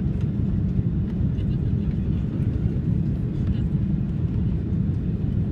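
Steady low rumble inside an airliner cabin on final approach: jet engine and airflow noise heard from a seat behind the wing.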